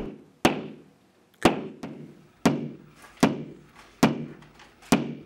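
Claw hammer tapping a plastic wall anchor into a drilled hole in the wall: six sharp taps about a second apart, each dying away quickly.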